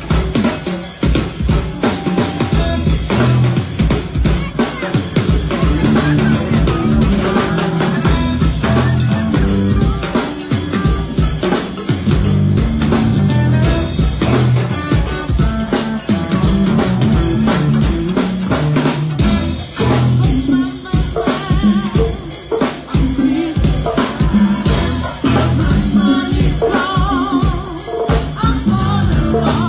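Live go-go band playing: a drum kit keeps a steady, driving beat with rimshots, under electric guitar and a singing voice.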